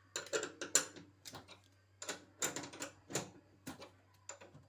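Irregular clicks and knocks of a wrench working the transport bolts loose from the back of a washing machine.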